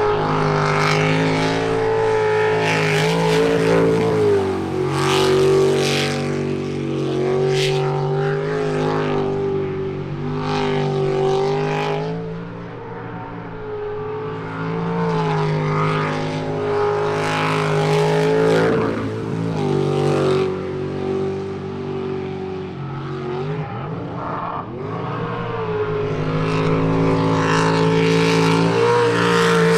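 Jet sprint boat's racing engine running hard through a twisting course, its pitch rising and falling repeatedly as the driver comes off and back on the throttle through the turns. The engine eases off twice, about halfway through and again near the end, before it revs back up.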